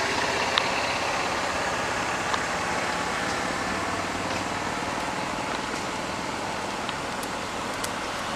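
Steady traffic noise from passing road vehicles, with a few faint clicks.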